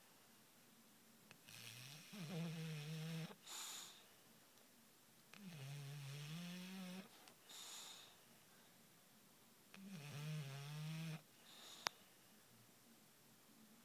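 A sleeping dog snoring: three long, raspy snores about four seconds apart, each followed by a short hissing breath.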